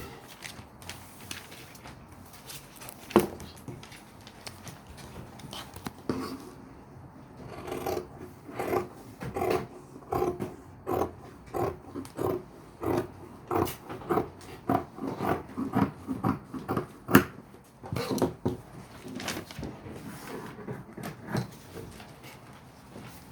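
Fabric shears cutting cloth on a table: a run of short snips at about two a second, with a sharp knock a few seconds before they start and one louder click among them.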